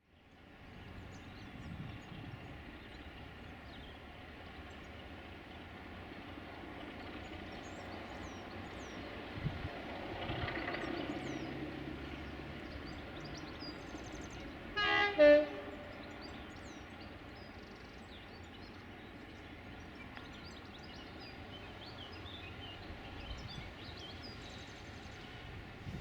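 Class 33 diesel locomotive's Sulzer eight-cylinder engine running steadily, with one short, loud horn blast in two parts about halfway through. Birds chirp faintly in the background.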